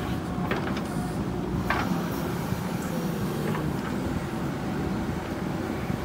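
JCB 3DX backhoe loader's diesel engine running steadily under hydraulic load as the backhoe arm swings, with a couple of sharp knocks in the first two seconds.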